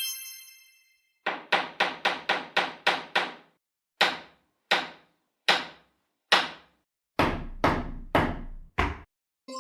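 Hammer blows. First a quick run of about eight strikes, then single blows under a second apart, coming faster again near the end. A ringing chime fades out during the first second.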